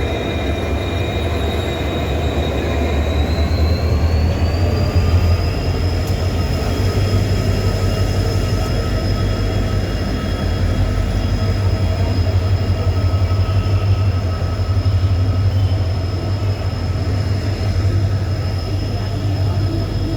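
Freight train of BCNA covered wagons rolling past with a steady low rumble and thin, high wheel squeal. The squeal's pitch rises a little a few seconds in, then holds steady.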